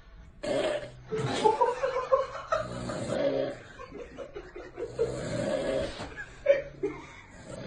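People laughing and snickering in repeated bursts about a second long.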